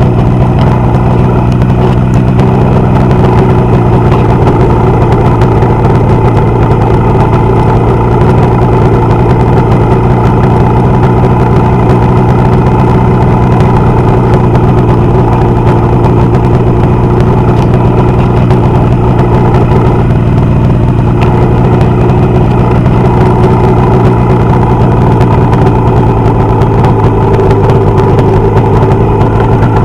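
Motorcycle engine running steadily at idle on a test after repair. It holds an even, unchanging note throughout, with no misfires or stumbles standing out.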